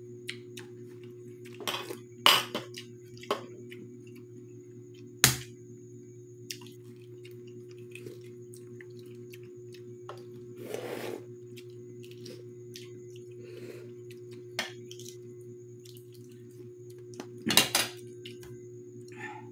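Metal spoons clicking and scraping against ceramic bowls and plates, with balut eggshells tapped and cracked, in a dozen or so sharp taps, the loudest about two, five and seventeen seconds in. A steady low hum runs underneath.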